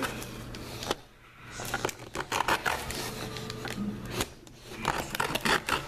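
Scattered clicks and taps with plastic crinkling: hands working the plastic packaging of a Nerf blaster and its darts.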